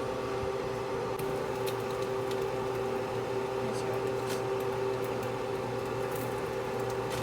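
Steady electric hum of a kitchen appliance running, with a light hiss and a few faint clicks.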